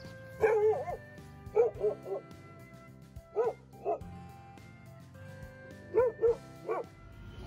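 Puppy giving short, high yips and barks in clusters of two or three, four times, over background music.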